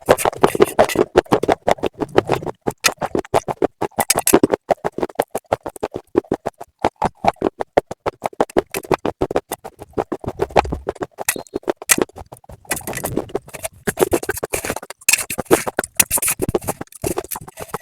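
Rapid, crisp crunching of hard slate pieces being bitten and chewed, several sharp cracks a second.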